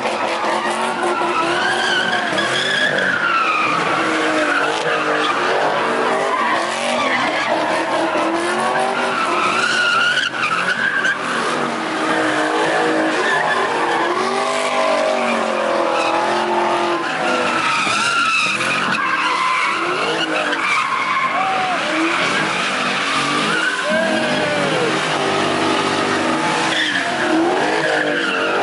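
Cars spinning donuts and burnouts: tires squealing without a break while engines rev up and down at high rpm.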